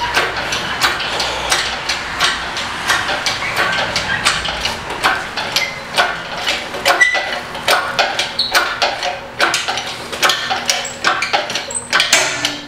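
A rapid, irregular run of metal clinks and knocks from hand tools on steel engine parts.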